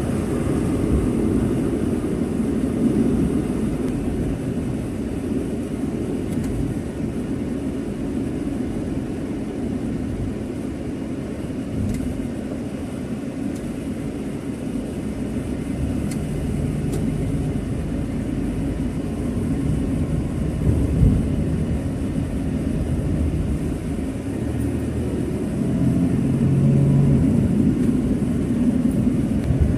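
Steady low rumble of a moving vehicle: engine and road noise, with no break in it.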